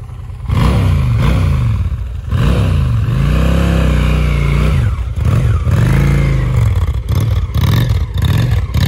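Honda Shadow motorcycle's V-twin engine revved several times as the bike pulls away, the pitch rising and falling with each blip of the throttle.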